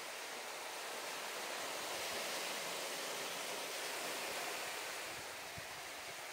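Small waves washing on the shore: a steady hiss of surf that swells for a few seconds, then eases off.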